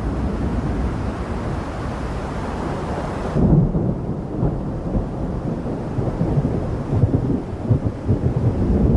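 Thunder rumbling with rain hiss in a storm. About three seconds in the hiss cuts off suddenly, leaving a lower rolling rumble that swells several times.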